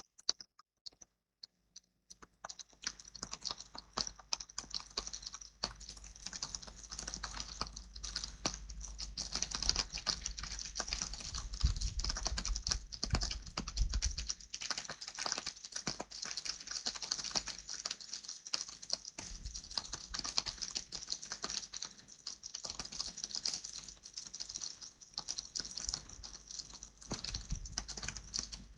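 Rain pattering: a dense, fast run of drops ticking, starting about two seconds in.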